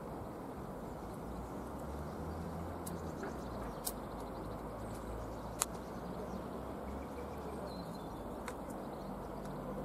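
Steady low outdoor background rumble, with two short sharp clicks about four and five and a half seconds in.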